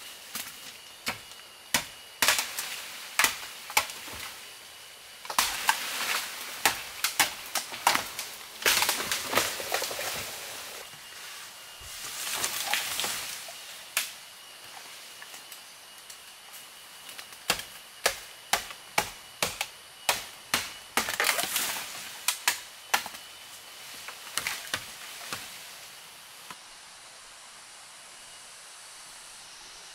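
Machete chopping at bamboo culms: runs of sharp knocks, some about a second apart and some about two a second, with stretches of rustling leaves and stems in between.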